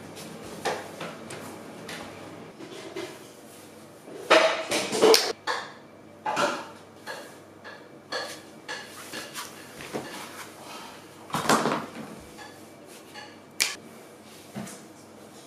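Irregular knocks and clatters of slide sandals and shoes on a tiled floor, loudest in two bunches about four seconds in and eleven seconds in, with a single sharp click near the end.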